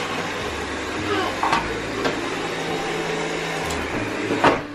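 Cordless stick vacuum running steadily on carpet, with a sharp knock near the end.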